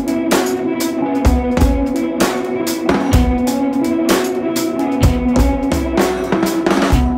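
Background music with a steady drum-kit beat, bass drum and snare, over held notes.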